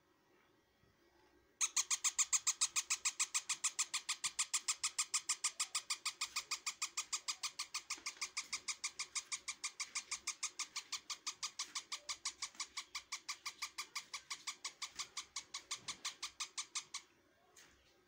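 Newborn parrot chick begging while being syringe-fed, a long run of rapid, even chirps at about six a second that starts suddenly and stops suddenly near the end.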